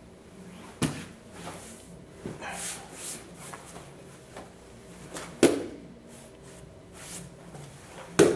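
Grappling on foam mats: cotton gis rustling and bodies shifting, with a few dull thuds as a body hits the mat, the loudest about five and a half seconds in, others about a second in and near the end.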